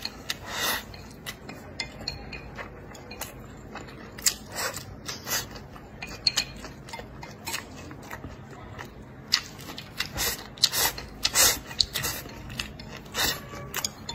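Close-miked eating sounds: chewing and lip smacks over mouthfuls of rice and bracken stems, with wooden chopsticks clicking and scraping against a ceramic plate. Sharp clicks and smacks come every second or so, thicker in the second half.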